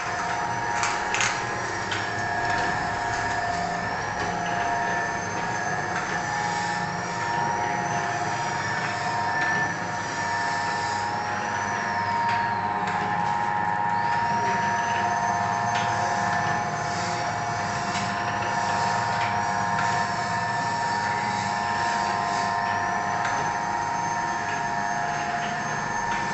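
Center-seal sachet packing machine with conveyor running: a steady mechanical hum carrying several constant whining tones, plus a high whine that drifts up and down in pitch. A few sharp clicks sound near the start.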